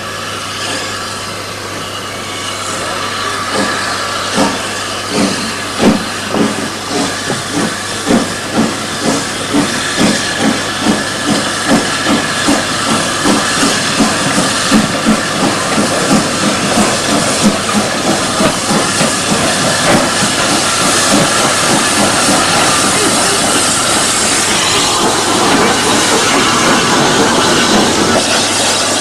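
Steam locomotive working a train, its exhaust beats coming faster and faster over the first half, then blurring into a steady hiss and rush that slowly grows louder.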